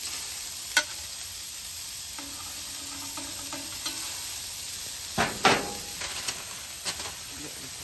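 Balls of ground lamb sizzling in a light coat of oil on a hot flat-top griddle, with a few taps and scrapes of a metal spatula on the griddle plate. The loudest scrapes come a little past halfway.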